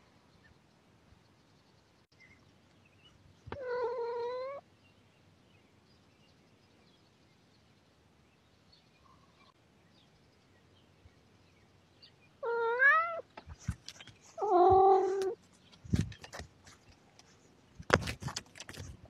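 A cat meowing three times: one drawn-out meow about four seconds in, then two more around twelve and fourteen seconds in, the first of these rising in pitch. Near the end, a run of scuffs and knocks.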